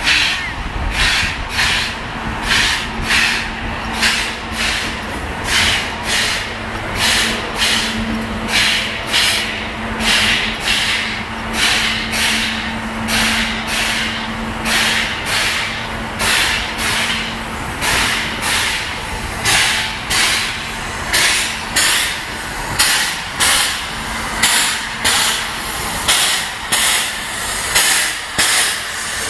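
Steam locomotive No. 204 giving off rhythmic hissing puffs of steam, about two a second, over a steady low hum.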